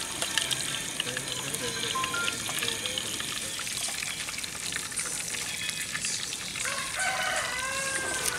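Hot oil sizzling and crackling around tofu pieces frying in a pan on a camp stove, a continuous hiss full of tiny pops.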